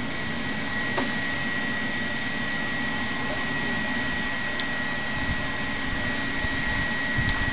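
Steady whir of a small electric motor with a faint constant high whine, and a few light clicks.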